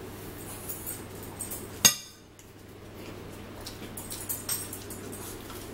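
A fork and cutlery clinking against plates as people eat, in light scattered taps, with one sharp, much louder clink or knock about two seconds in. A steady low hum runs underneath.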